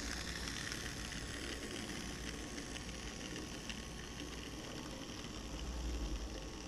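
N-scale model train running past close by: a steady rushing noise from its small motor and wheels on the track, with a low rumble that grows louder about six seconds in.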